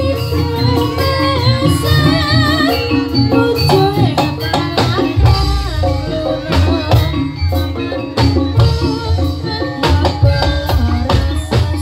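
Live Javanese jaranan senterewe music: loud, steady drumming and jingling percussion over a heavy bass, with a wavering, ornamented melody line on top.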